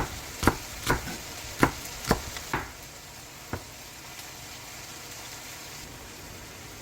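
Food frying in a pan while being stirred: a utensil knocks against the pan about seven times in the first few seconds, then the steady sizzle carries on alone.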